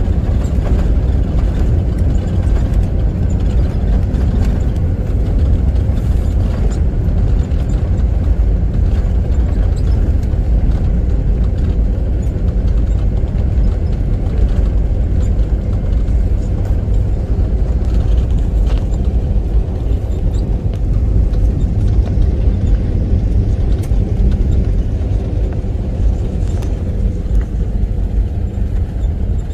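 Steady low rumble of a moving vehicle, with a faint steady hum.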